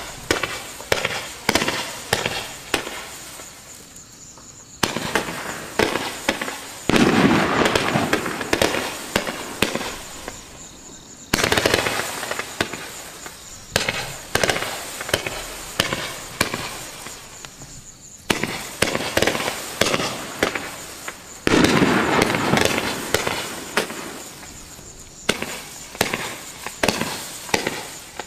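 NICO Woodpecker 98-shot fireworks battery firing shot after shot, one or two launches a second, each a sharp bang as a comet leaves its tube. Two stretches, about 7 and 21 seconds in, are louder and denser, with the shots running together.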